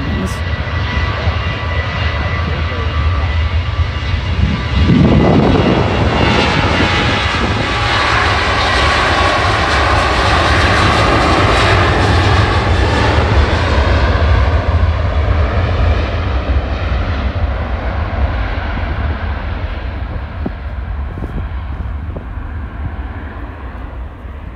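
Jet2 Boeing 737's twin CFM56 turbofan engines at full takeoff thrust as the airliner rolls down the runway: a heavy roar and rumble with a thin whine at first. It swells about five seconds in, is loudest as the jet passes, then fades away down the runway.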